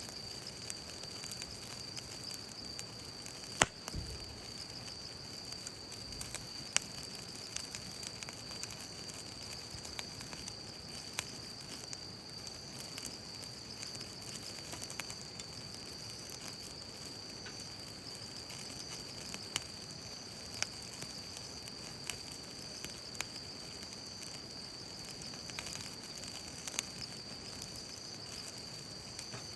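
Wood campfire crackling, with scattered sharp pops, over a steady high-pitched whine.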